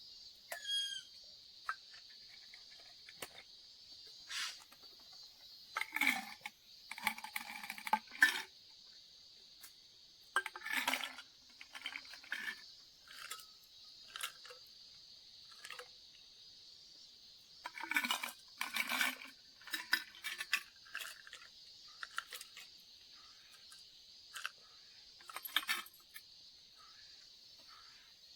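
Metal camp cookware being handled, with short bursts of clinks and clatters a few times, over a steady high-pitched insect drone.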